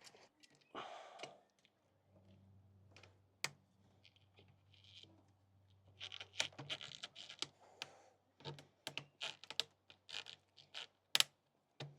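Hands working a hose back onto its fitting in an engine bay: scattered clicks, taps and rustles of plastic and rubber parts being handled, busier in the second half.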